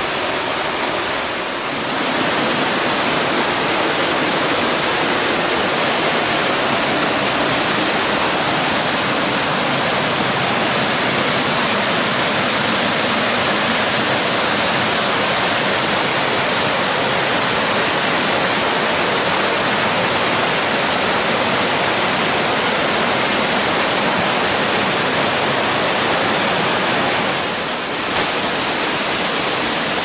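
Waterfall and the shallow rocky stream below it, a steady loud rush of falling and running water, briefly dipping about two seconds in and again near the end.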